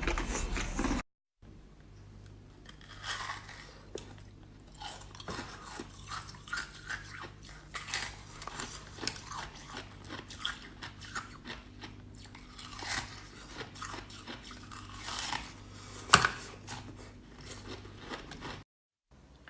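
Ice being bitten and chewed: a run of irregular crunches and crackles over a faint steady low hum, with one sharp, louder crack near the end.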